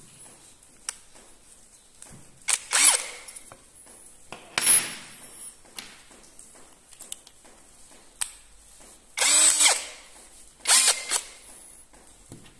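Cordless drill run in four short bursts of half a second to a second each, with light clicks between them.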